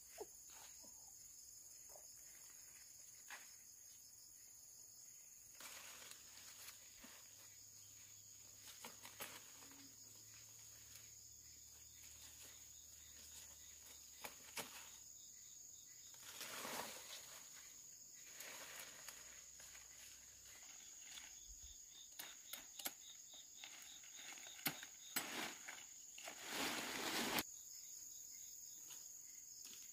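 A steady high insect drone, with dry grass and brush rustling and crackling as it is pulled and handled, in louder bursts around the middle and near the end.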